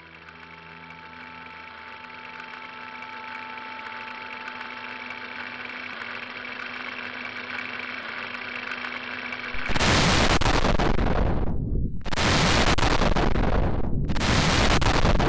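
A low sustained drone with steady tones slowly swells, then about ten seconds in a sudden, very loud explosion breaks out: the bridge being blown by the detonator. It comes as three long blasts of noise, each about two seconds, with a deep rumble carrying on between them.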